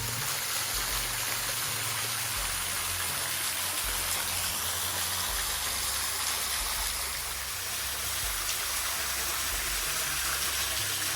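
Small wet-weather waterfall splashing steadily, a constant rushing hiss of falling water.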